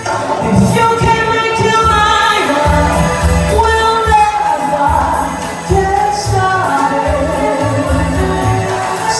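Background music: a song with singing over a steady, pulsing bass beat.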